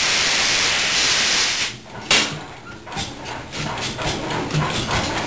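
Brons marine diesel engine being started: a loud hiss of starting air for about two seconds, a sharp bang as it cuts off, then the engine catches and runs with an even rhythm of knocks.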